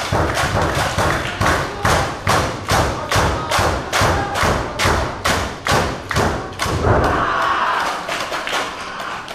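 An audience clapping together in a steady rhythm, about three claps a second, stopping about seven seconds in.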